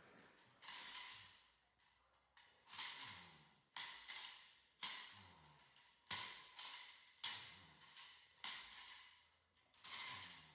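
Puppy tugging and thrashing on a decoy's padded bite tug and quilted bite suit: a string of sharp swishing rustles, roughly one a second, each fading away.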